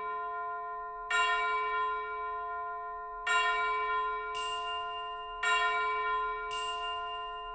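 Background music of slow bell-like chime notes, struck three times about two seconds apart, each ringing out and fading, with a high shimmering sparkle between the strikes.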